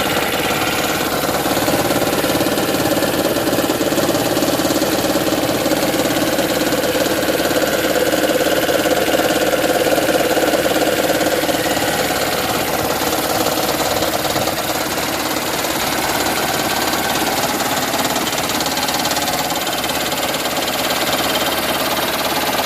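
2010 Toyota Prius's 1.8-litre four-cylinder petrol engine running steadily with engine knocking, a sound likened to a raptor's call.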